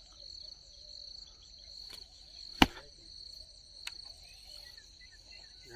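Insects chirping steadily in a high, pulsing trill, with one sharp click about two and a half seconds in and two fainter clicks either side of it.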